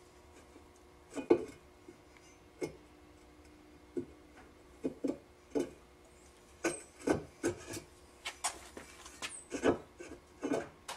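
Irregular clicks and knocks of the metal Minn Kota Talon jack-plate mounting bracket being shifted by hand to seat its alignment teeth, sparse at first and coming faster in the second half.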